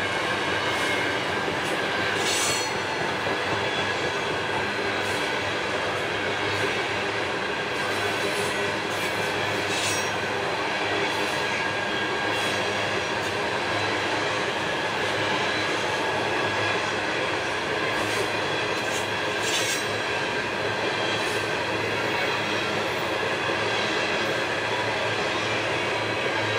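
Freight train's cars rolling along the rails with a steady rumbling noise, with a few brief high-pitched squeals from the wheels.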